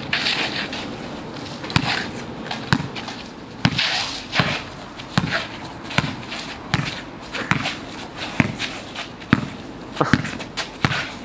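Basketball bouncing on an outdoor asphalt court as players dribble: sharp bounces at uneven intervals, about one or two a second, with scuffing footsteps.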